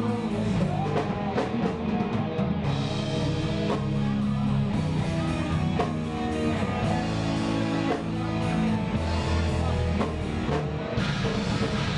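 Live rock band playing electric guitars, bass guitar and drum kit, loud and steady, heard through the room of a small club.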